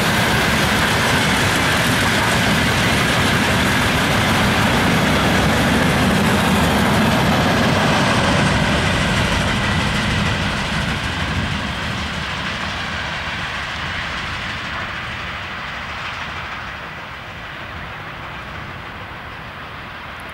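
Freight train of gondola wagons rolling past on the rails, the wheels running over the track in a steady loud rush. About ten seconds in the sound starts to fade and grows duller as the tail of the train passes and draws away.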